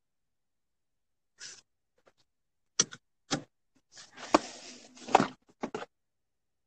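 Handling noise: a handful of short rustles, clicks and knocks with dead silence between them. The loudest cluster comes about four to five seconds in.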